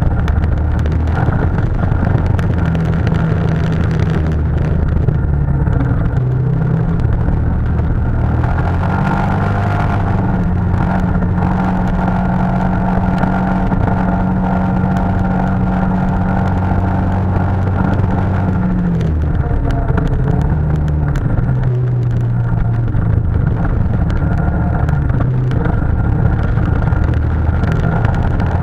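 ATV (quad) engine running under way on a snowy trail, heard from the machine carrying the camera. The engine note steps up about a third of the way in, holds steady, and drops back about two-thirds through.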